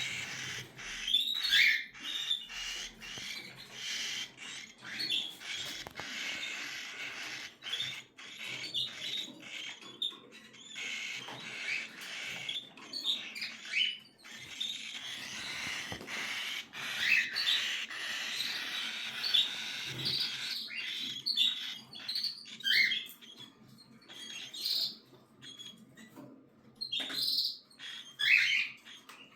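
Cockatiel chicks calling: a continuous raspy chatter broken by many short, sharp chirps.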